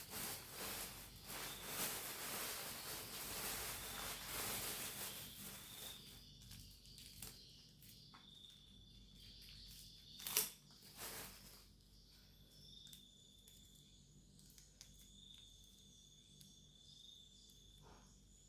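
Rustling and crinkling of plastic food packaging for the first several seconds, then a single sharp click about ten seconds in, over a faint steady chirr of crickets.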